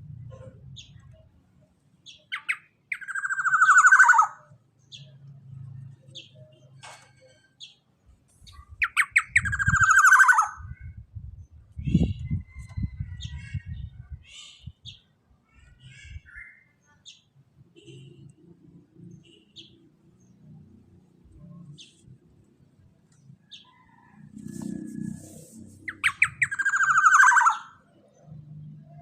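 Black-naped oriole (kepodang) calling: three long calls, each sliding down in pitch, about three, nine and twenty-six seconds in, with short faint chirps between them.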